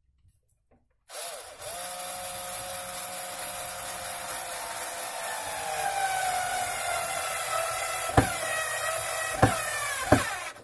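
Cordless electric screwdriver motor starting about a second in and running under load against a metal shelf bracket, its whine slowly dropping in pitch. A few sharp clicks come near the end, and the motor stops suddenly.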